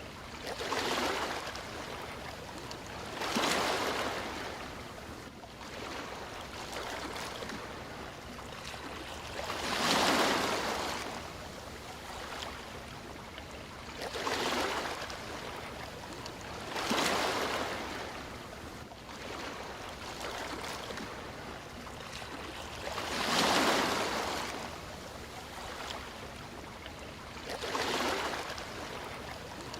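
Sea waves breaking and washing in, each wave a swelling hiss that rises and fades over a couple of seconds, about seven times at uneven intervals, over a steady low wash of water.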